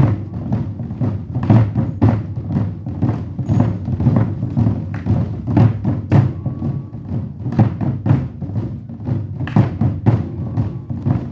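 Ensemble of Korean buk drums played in a fast, driving rhythm: many deep strokes a second in a continuous pattern.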